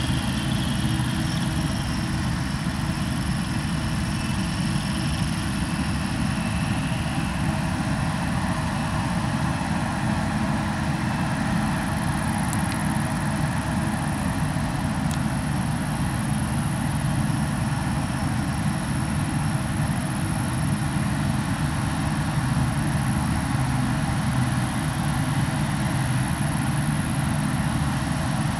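Claas Dominator 88 SL combine harvester harvesting rye: its diesel engine and threshing machinery running steadily under load, a constant low drone.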